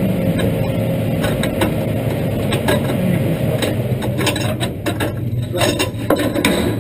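Clicks, knocks and rattles of hands working a race car's seat harness and window net inside the cockpit, busiest in the second half, over a steady low rumble.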